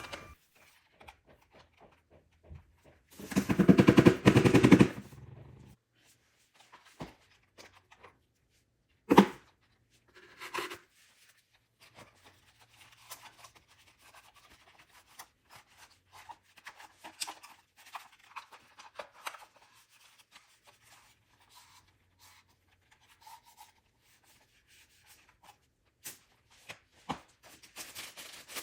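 Plastic parts of a Roomba 649 being handled: a loud rapid rattle lasting about two seconds starting about three seconds in, a sharp snap about nine seconds in, then many light clicks and knocks.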